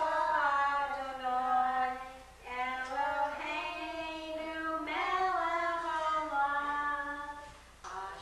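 Voices, a woman's and a child's among them, singing a Passover seder song together without accompaniment, in held phrases with short breaks about two seconds in and near the end.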